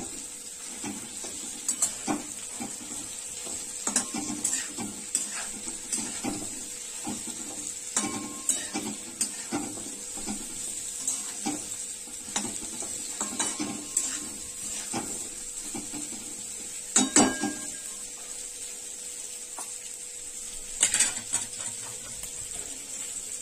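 Metal spatula stirring stuffed okra in a kadhai, scraping and clicking against the pan over a steady sizzle of hot oil. There is a louder knock on the pan about two-thirds of the way through and another burst of clatter near the end.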